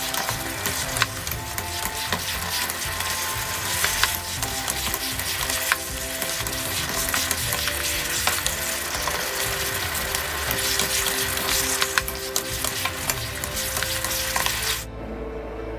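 Thick pork-rib braising sauce sizzling hard over high heat, boiling down and thickening, while two wooden spatulas stir and scrape the ribs around a nonstick pan with frequent clicks and scrapes. Background music plays underneath. The sizzling cuts off abruptly near the end, leaving only the music.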